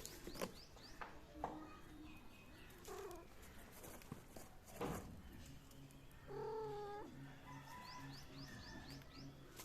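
A cat gives one drawn-out, wavering meow about two-thirds of the way in. A few soft knocks come before it, and a low pulsing hum runs underneath in the second half.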